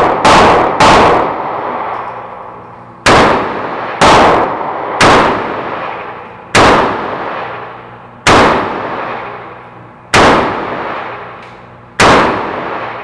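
Taurus eight-shot .22 Magnum revolver being fired, sharp cracks in a string: three quick shots in the first second, then single shots every one to two seconds. Each shot rings on in the echo of the indoor range.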